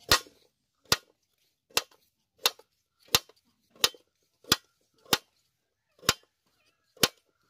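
Knife slicing a raw potato, the blade striking a metal tray with a sharp click at each cut: about ten evenly paced strokes, a little faster than one a second.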